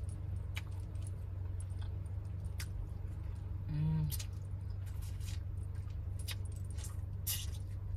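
Eating a seafood boil by hand: scattered sharp clicks and crackles of shells being peeled, with chewing and lip-smacking, and a brief voiced "mm" about four seconds in. A steady low hum runs underneath.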